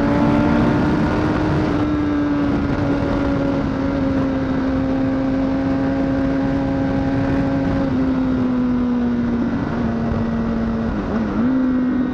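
Honda CBR1000RR (SC57) inline-four engine running at steady revs, its pitch sinking slowly and dipping briefly twice near the end, with wind rush on the microphone.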